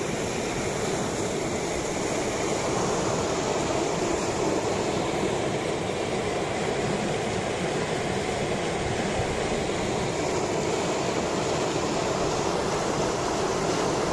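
Muddy flash-flood water rushing down a desert riverbed, churning through standing waves in a steady, unbroken rush.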